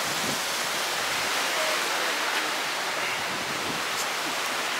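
Steady rushing noise of wind on the microphone together with ocean surf on a beach.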